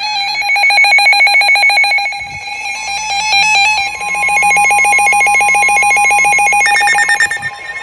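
Several NOAA weather radios sounding their alert alarms at once for a severe thunderstorm warning: rapid electronic beeping at several pitches. About three seconds in, a steady single-pitch tone joins, the broadcast's 1050 Hz warning alarm tone. Near the end another radio's higher beeping starts.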